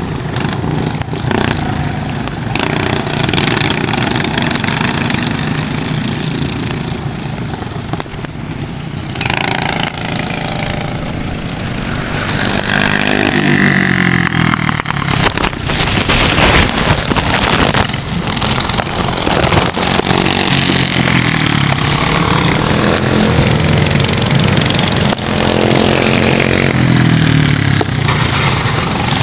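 Go-kart engine running at race pace, its pitch rising and falling over and over as the kart accelerates and slows, over a steady rushing noise.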